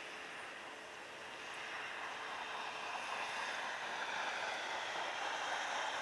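Airbus A320neo taxiing at low thrust, its twin jet engines making a steady rushing hiss that grows louder about two seconds in as the aircraft turns toward the listener.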